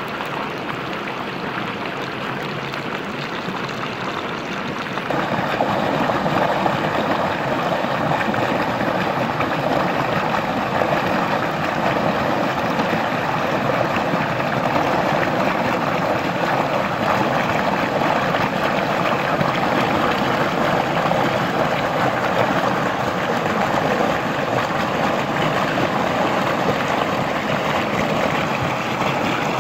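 Stream water rushing and splashing down a small rocky cascade, a steady noise. It is quieter and thinner for the first five seconds, then gets fuller and louder.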